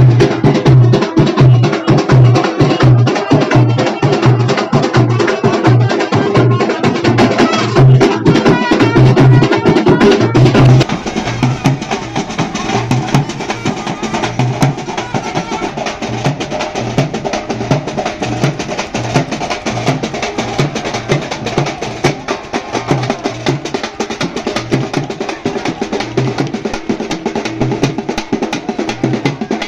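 Loud festival drumming: fast, sharp strokes over a steady deep beat about twice a second. The drumming gets quieter about eleven seconds in.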